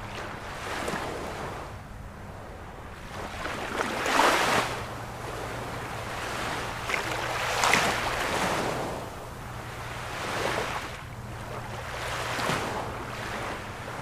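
Sea waves breaking and washing up the shore, swelling and falling every two to three seconds, loudest about four and eight seconds in.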